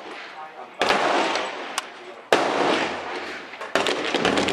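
Gunshots at an outdoor range: three loud shots about a second and a half apart, each trailing off in a long echo, with fainter, sharper cracks between and after them.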